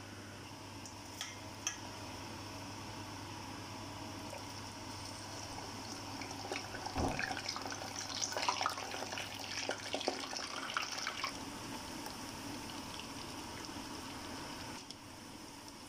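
Potato chunks deep-frying in hot oil in a steel pot: a steady sizzle, with denser crackling in the middle and a single thump about seven seconds in.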